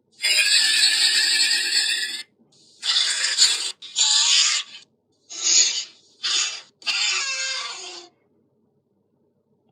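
Monster call sound effect for a fictional giant creature: a series of six harsh, screeching animal-like cries, the first about two seconds long, the following ones shorter, the last one trailing off.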